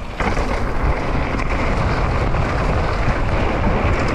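Steady rush of wind noise on the action camera's microphone over a mountain bike's tyres rolling across wooden boardwalk planks. It rises sharply about a quarter second in, as the front wheel reaches the wood.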